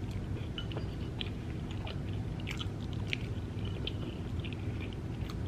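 A person chewing a mouthful of lobster meat, with soft, wet mouth clicks and smacks coming irregularly throughout.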